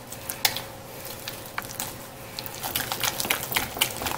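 Rubber spatula mashing and pressing a soft egg-yolk filling against the sides of a ceramic bowl: irregular soft squishes and taps that come quicker and a little louder from about halfway through.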